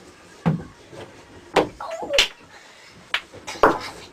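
Several sharp, separate clacks of snooker balls knocking on the table, with a short snatch of voice about two seconds in.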